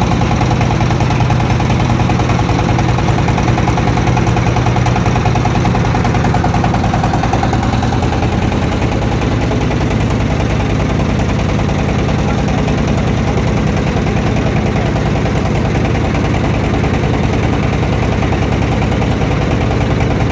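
An engine running steadily at an even speed throughout.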